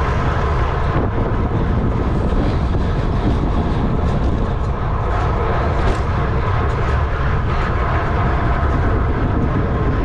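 Wind rushing and buffeting over an on-bike camera microphone on a racing bicycle at race speed, a steady, heavy rumble.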